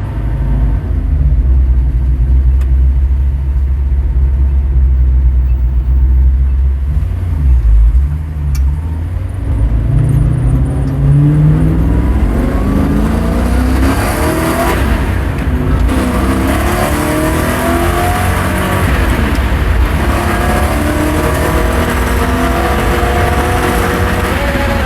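Engine idling steadily, then revved from about ten seconds in, its pitch rising and falling repeatedly. The owner reports a strange noise appearing around 5,000 rpm.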